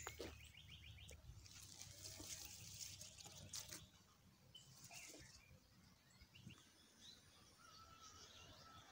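Faint outdoor ambience with scattered bird calls: a quick trill just after the start, a few short chirps, and a thin held note near the end, over soft rustling.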